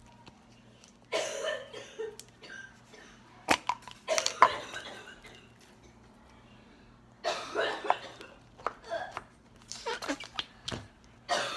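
Glitter slime being pulled apart and handled, giving irregular short noisy bursts with a few sharp clicks between quiet gaps.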